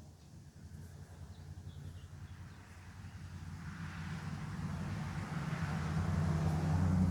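A motor vehicle approaching and passing: a low engine hum with tyre noise that grows steadily louder, peaks near the end, then begins to fade.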